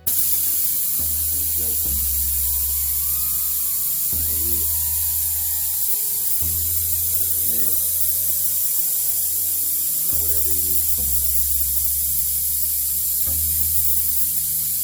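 Air hissing steadily out of a nail hole in a car tire tread after the nail has been pulled, with a low hum underneath: the tire is leaking.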